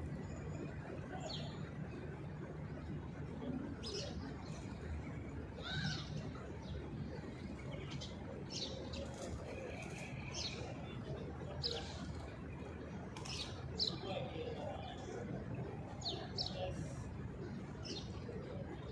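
Birds chirping in short, high calls, one every second or so, over a steady low hum.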